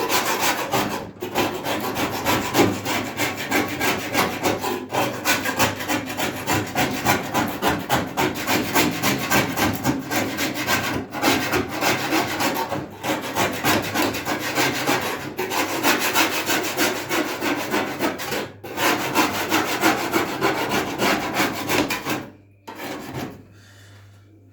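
A hand tool scraping back and forth in rapid strokes, with a few short pauses; it stops about 22 seconds in.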